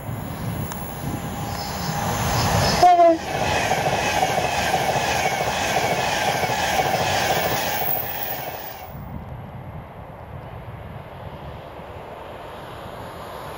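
Class 390 Pendolino electric train passing at speed. It sounds a brief horn toot about three seconds in. A loud rush of wheels and air follows for about six seconds, then fades away.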